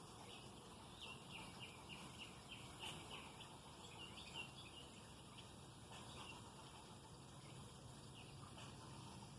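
A small bird chirping faintly: a quick run of short high notes in the first half, then a few scattered chirps, over a low steady background hiss.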